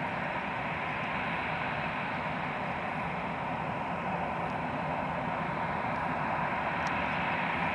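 Airbus A320-216's twin CFM56 jet engines at taxi idle, heard as a steady rushing hiss with a low rumble beneath, growing slightly louder as the airliner taxis toward the microphone.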